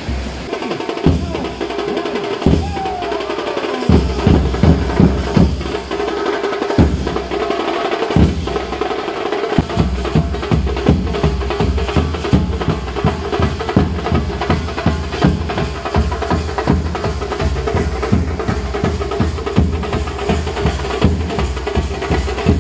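Background music driven by drums and percussion with a steady beat. A deep bass comes in about four seconds in, drops out briefly, and returns with a denser beat from about ten seconds on.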